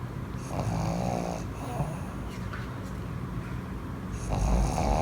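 Fawn pug snoring in his sleep: two snores about four seconds apart, each lasting about a second.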